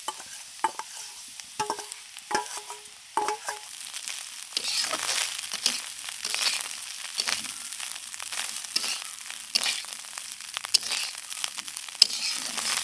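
A few ringing metal clinks as fried fish roe is tipped from a steel bowl into a black iron kadai. Then a metal spatula stirs and scrapes in the kadai while the bitter gourd and potato fry sizzles in oil.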